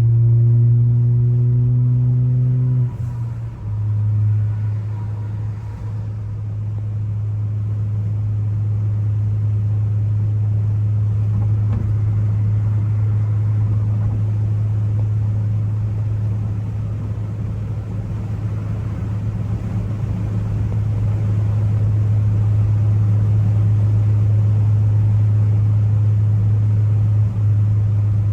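Ford Focus ST's turbocharged engine droning while driving. It pulls with a slightly rising pitch for about three seconds, dips briefly, then holds a steady low drone.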